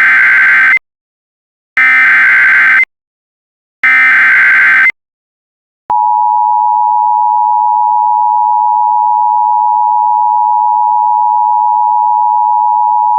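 Emergency Alert System header: three loud one-second bursts of warbling digital data tones (the SAME header), about a second apart. About six seconds in, the steady two-tone EAS attention signal begins and holds.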